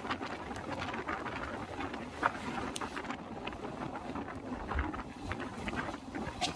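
Passenger train running, heard from on board: a steady rush of wind and rumble with scattered clicks and rattles, and a sharper knock a little over two seconds in.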